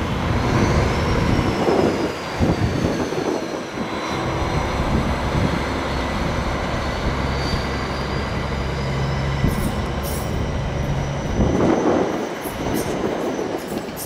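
Stadler Citylink tram-train moving slowly on the rails, with a thin high wheel squeal that wavers in pitch throughout and a steady low electric drone underneath. A few sharp clicks come near the end.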